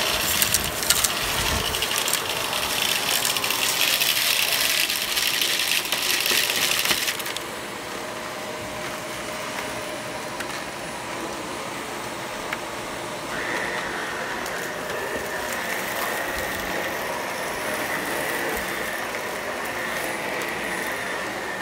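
Shark Professional Lift-Away vacuum sucking up a pile of crunchy debris and beads through its bare wand, hard bits rattling and clicking up the tube for about the first seven seconds. Then the vacuum runs steadily, with a steady high whine joining about thirteen seconds in.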